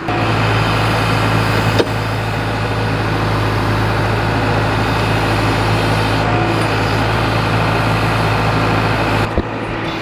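John Deere backhoe's diesel engine running steadily while the bucket digs into soil, with a single sharp knock about two seconds in. The engine sound drops away abruptly near the end.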